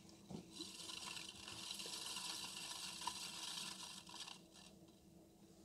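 Faint steady hiss of wet hands sliding on soft clay spinning on a potter's wheel during the first pull of a thrown cylinder, over a faint low hum; the hiss stops about four seconds in.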